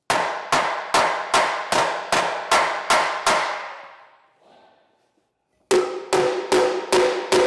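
Hammer blows on the steel brake backing plate behind a trailer's wheel end, beating loose a Dexter Torflex axle stuck to the frame brackets by debris and corrosion. Roughly eight quick blows at a steady pace of about two and a half a second, a pause of about two seconds, then another run of blows that ring with a clear tone.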